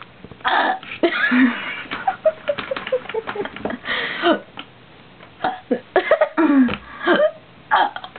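A girl burping several times in a row, with short pauses between the burps.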